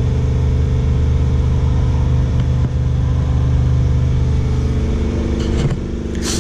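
Steady low mechanical hum of running machinery, with a few short clatters near the end as the hum eases.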